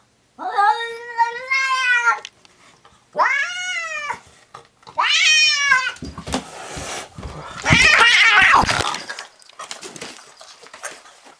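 Neutered house cat caterwauling: three long, drawn-out yowls, then a rougher, noisier cry. It is yowling at a stray cat that it senses outside.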